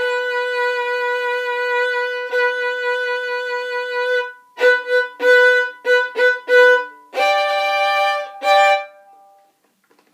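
Solo violin. It holds one long bowed note for about four seconds, then plays a quick run of short detached notes, and ends on two final notes that ring away about nine seconds in.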